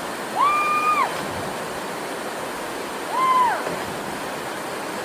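Steady rush of a waterfall, with two drawn-out calls over it, one about half a second in and one about three seconds in. Each call rises, holds one pitch and then drops.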